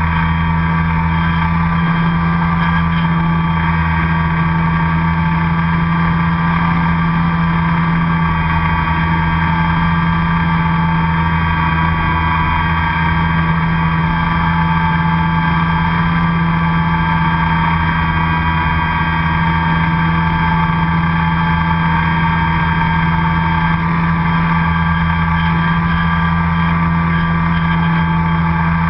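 RC airplane's motor and propeller running steadily, heard from a camera on board the plane: a constant loud drone with a low hum and higher whining tones that waver slightly in pitch.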